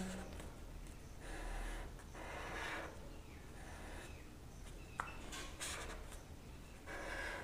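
Felt-tip marker drawn across paper in a series of faint short strokes, with a single light tick about five seconds in.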